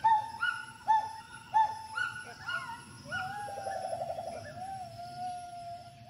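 Gibbon calling: a series of loud hoots, each swooping up and dropping away, about one or two a second. About three seconds in, the call turns into one long wavering note with a quick trill, which settles into a steady held tone.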